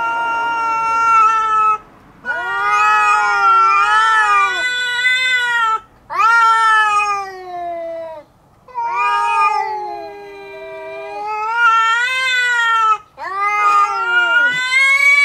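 Two cats, a tabby and a calico, yowling at each other in a face-off: about five long, wavering caterwauls with short breaks between them. It is the threatening yowling of a territorial standoff that can turn into a fight.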